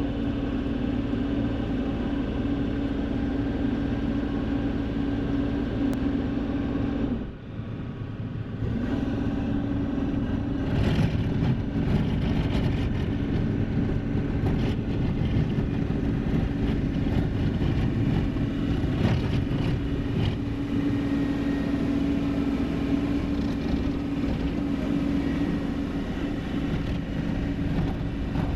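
Tri-axle dump truck's diesel engine running with a steady hum, briefly dropping away about seven seconds in, then working harder and louder from about ten seconds in as the truck pulls away under load.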